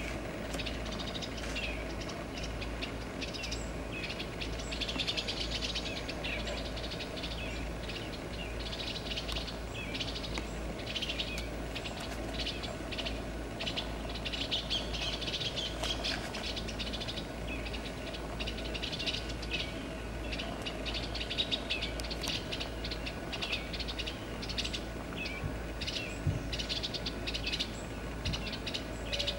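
Eastern bluebirds calling over and over in short chirps: the parents' agitated calling at the nest box while their young fledge. A steady low rumble runs underneath.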